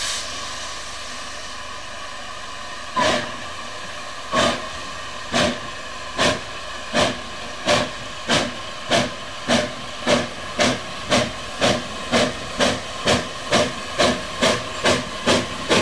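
Steam tank locomotive hissing steam at its cylinders, then starting away with its train: exhaust chuffs begin about three seconds in, widely spaced, and quicken steadily to about two a second as it gathers speed.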